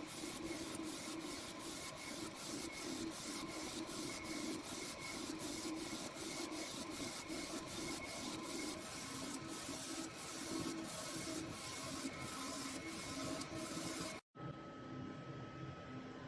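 UV DTF printer printing, its mechanism running in a quick regular rhythm of about three strokes a second. It cuts off suddenly about 14 seconds in, giving way to a quieter steady hum.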